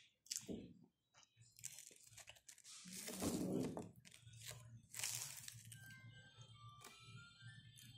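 Crisp fried vadas (garelu) being broken by hand and chewed: irregular crunching, loudest about halfway through. Faint thin tones sound in the background near the end.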